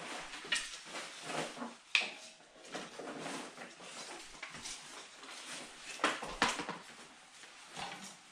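Thin wooden kindling sticks clattering and knocking against each other and the stove as they are laid into a wood stove's firebox. The sound is a handful of sharp knocks, loudest about two seconds in and twice in quick succession about six seconds in.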